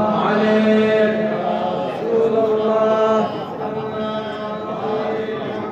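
A man's voice chanting salawat, a blessing on the Prophet, in long held notes with a few changes of pitch. After about three seconds the chant goes on a little quieter.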